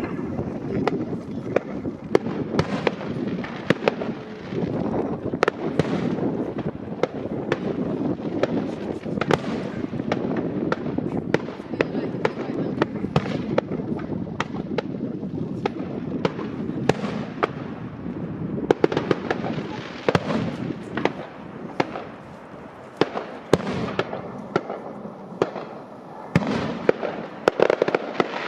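Firework display in full barrage: a rapid, unbroken run of bangs and crackles, several a second, over a dense low rumble of overlapping shell bursts.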